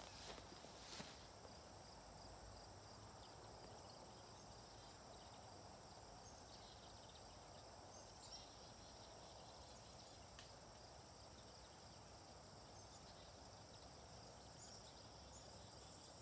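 Faint, steady high-pitched insect trilling, with two short clicks in the first second.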